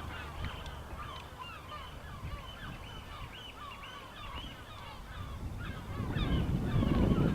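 A flock of birds calling, many short, overlapping honk-like calls. A low rumble builds near the end.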